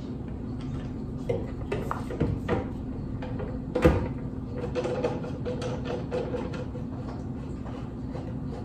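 Hard plastic knocks and clicks as a sous vide precision cooker is lowered into a clear plastic water container and clamped to its rim. The loudest knock comes about four seconds in, with lighter clicks after it.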